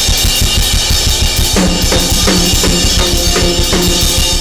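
A drum kit played loudly and fast, with pounding bass drum, cymbals and sharp tom or snare hits, while a congregation claps and shouts in praise.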